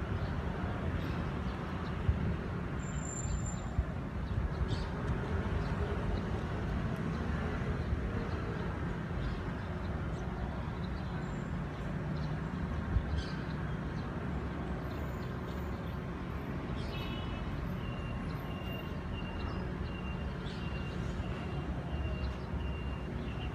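Steady low outdoor background rumble, with a faint thin steady high tone coming in about three-quarters of the way through.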